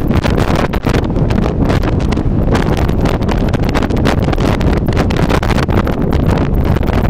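Strong wind buffeting the phone's microphone: a loud, steady rumble that flutters with the gusts.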